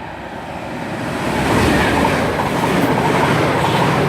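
Chiltern Railways diesel loco-hauled passenger train approaching through the station, its engine and wheels on the rails growing steadily louder.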